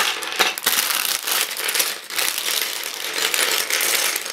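A clear plastic parts bag crinkling and rustling as it is handled and emptied, with the loose Lego plastic pieces inside clattering.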